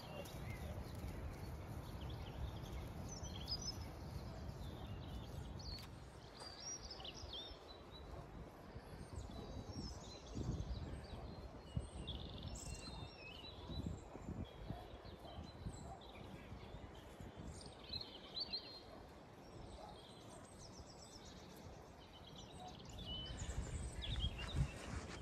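Wind buffeting the microphone in an uneven low rumble, with small birds chirping and singing in short phrases throughout.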